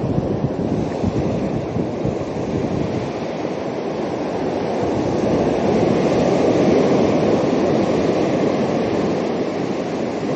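Surf breaking on the shore, with wind rushing over the microphone; the wash swells louder about halfway through.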